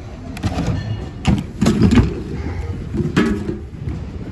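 Rummaging in a large plastic bin of mixed thrift-store goods: items shoved aside and knocking against each other and the bin's sides, with several thumps and clatters over a steady background hum.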